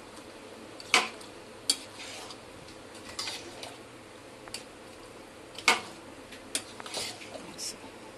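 A spatula stirring rice in a stainless-steel pot, clinking and scraping against the sides and rim, with two louder clanks about a second in and nearly six seconds in. The ground onion-and-coconut paste is being mixed into the half-cooked biryani rice.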